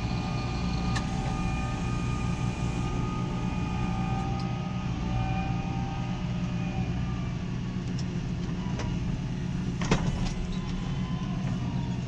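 Fendt tractor's diesel engine running steadily under load while ploughing, heard from inside the cab, with a few sharp clicks, the loudest near the end.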